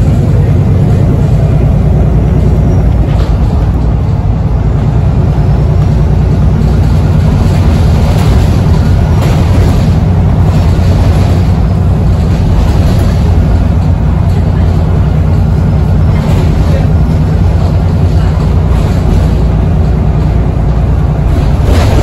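Cabin sound of a VDL SB200 Wrightbus Pulsar 2 single-deck bus under way: a loud steady engine and drivetrain rumble with a faint steady whine above it, the 'crying' turbo whine of this bus, and occasional brief rattles.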